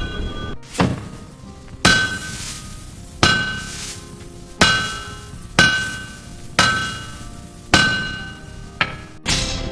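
Blacksmith's hammer striking steel on an anvil: about nine ringing blows, roughly one a second.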